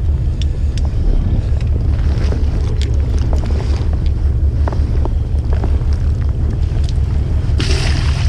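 Small fishing boat's engine idling with a steady low rumble, wind buffeting the microphone, and scattered small knocks. Near the end a brief rush of splashing water.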